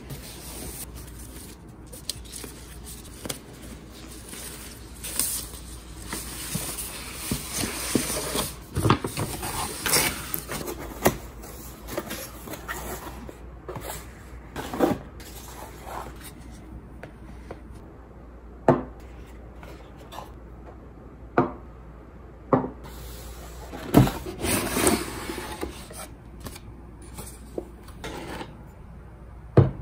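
Cardboard boxes being opened and handled, the flaps and packing rustling and rubbing, with several sharp single knocks of glass candle jars being set down on a wooden table.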